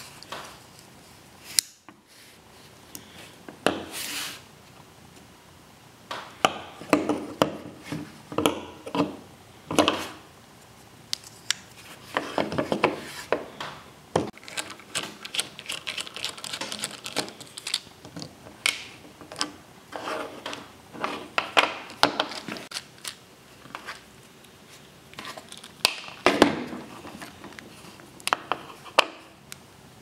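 Irregular small clicks, taps and rubbing as a folding pocket knife is handled and its screws are turned out with a precision screwdriver, the plastic handle scales and metal parts knocking and scraping together.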